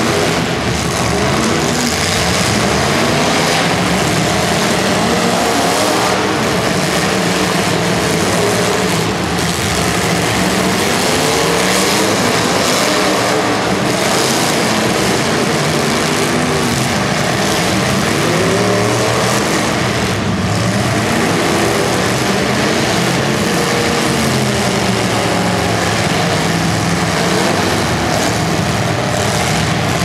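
Several demolition derby car engines revving hard at once, their pitches rising and falling over one another without a break, as the cars push against each other with tyres spinning in the mud.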